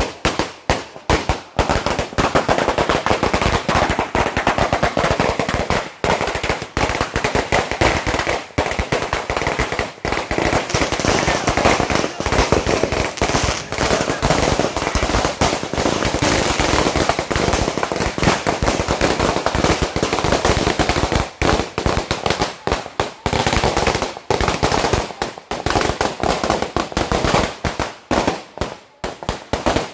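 Firecrackers going off in rapid succession, a dense crackle of sharp bangs that thins into more separate pops over the last few seconds.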